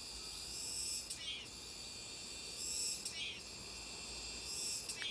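Cicadas buzzing in a steady, high drone that swells and eases about every two seconds, with a short falling chirp repeating at about the same rate.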